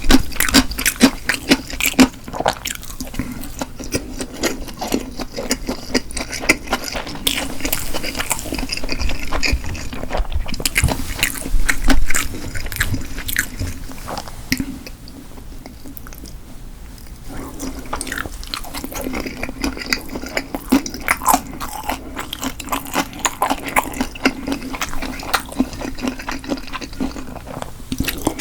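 A person chewing and eating close to the microphone: wet, sticky mouth sounds and smacks, quieter for a few seconds about halfway through.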